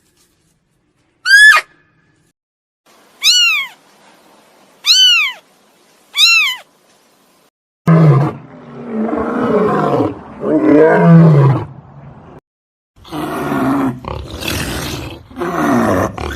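Four short high-pitched animal calls, each rising then falling in pitch, followed about eight seconds in by a big cat growling and roaring in two long rough bouts.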